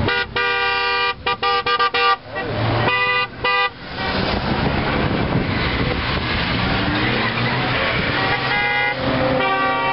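Car horns honking from a procession of passing BMW Z3s: a long blast that breaks into a quick run of short toots, two more short toots about three seconds in, and two more honks near the end. Engine and tyre noise from the passing cars fills the gaps.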